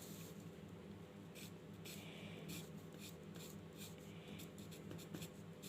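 Pencil drawing on paper: faint, irregular scratchy strokes, some short and some longer, over a steady low electrical hum.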